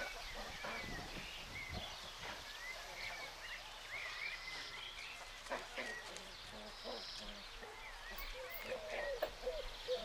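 Small birds twittering, many short chirps one after another, with a few lower, shorter calls from other animals near the end.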